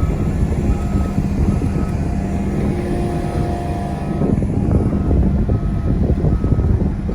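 Diesel bulldozer engine running steadily under load while grading a clay bank. A reversing alarm beeps over it in short, evenly spaced beeps, about one every half second to second.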